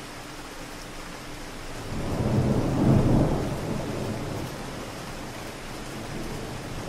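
Steady city rain, with a roll of distant thunder that swells about two seconds in, peaks a second later and rumbles away over the next couple of seconds.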